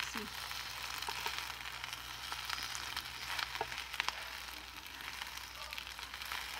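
Jasmine rice sizzling in a nonstick frying pan as it is stir-fried with a silicone spatula, with a few light clicks of the spatula against the pan.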